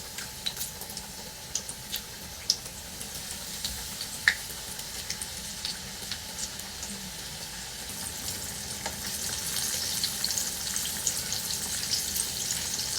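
Flour-coated chicken pieces frying in hot oil: a steady sizzle with scattered pops and crackles, growing louder in the second half.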